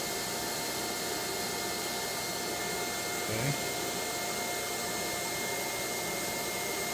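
Water flowing under pressure through a PVC test line, water meter and spring-loaded air-holding valve: a steady rushing hiss with a few faint steady whistling tones. The sound is the valve's spring being compressed and moving back to hold the air in the line. A brief low sound comes about halfway through.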